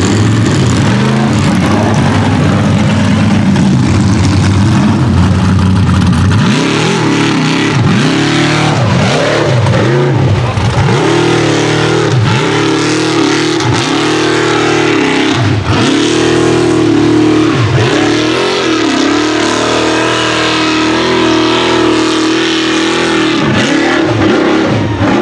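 Rock bouncer buggy's engine running hard on a dirt hill climb. From about six seconds in, the revs rise and fall over and over, roughly once a second, while the paddle tires spin and throw dirt.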